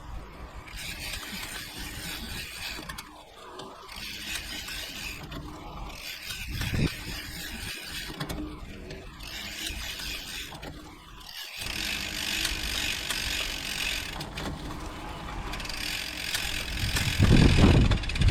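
Mountain bike drivetrain turned by hand: chain running over the sprockets with the freehub ratcheting and the gears shifting, showing the drivetrain still works after a crash. A loud low thump near the end.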